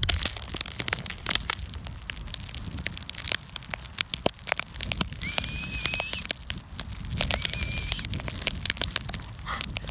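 Snow crunching underfoot: a dense, irregular crackle over a low rumble. A thin, high, whistle-like tone sounds twice in the middle, the first about a second long and rising slightly.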